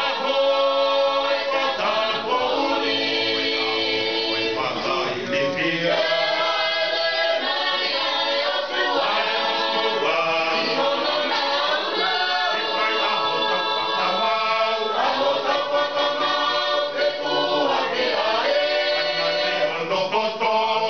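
Tongan church choir singing a hymn unaccompanied, in long held chords, with short breaks between phrases every few seconds.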